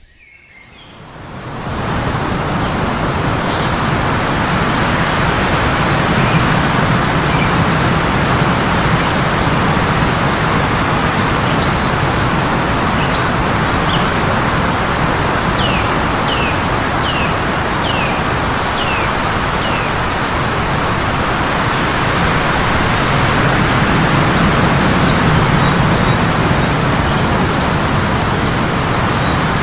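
Heavy, steady blizzard wind, fading in from near silence over the first two seconds. Small birds chirp through it, with a run of about seven quick falling chirps roughly halfway through.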